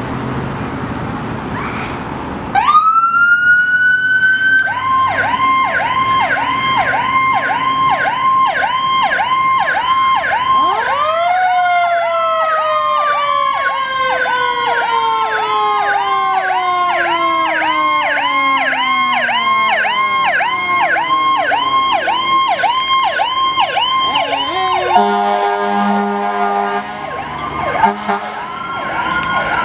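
Fire engine's Powercall electronic siren winding up after a couple of seconds of road noise, then running as a fast yelp of about two cycles a second. A second siren tone joins partway through, rising quickly and then falling slowly. Near the end the yelp breaks for a steady air-horn blast, then the siren starts winding up again.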